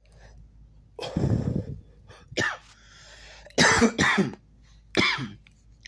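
A man coughing and clearing his throat, four or five short harsh bursts a second or so apart.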